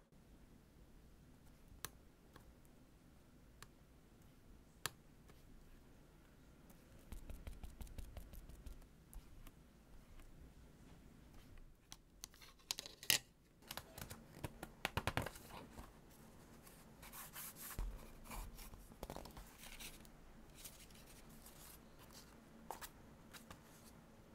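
Close-up paper and stationery handling: a few small isolated clicks, then from about halfway a busier run of paper rustling, scratching and crackling. The loudest sharp click comes in that stretch, as a plastic binder clip is fitted to the journal.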